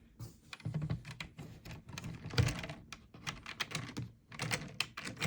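Plastic Lego bricks clicking and rattling in irregular runs as pieces are handled and pressed together, with a louder knock about two and a half seconds in.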